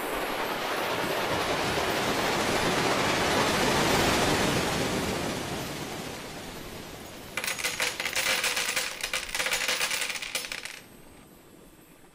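A rushing noise swells and then fades. It is followed by about three seconds of dense metallic clattering, with many rapid clicks, as loose screws spill and scatter across a hard tabletop.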